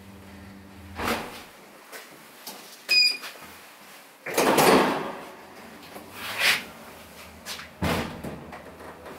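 Elevator car's steady low hum stops with a clunk about a second in. A click and a short high chime come about two seconds later, then the sliding doors run with a rush of noise, followed by a couple of knocks.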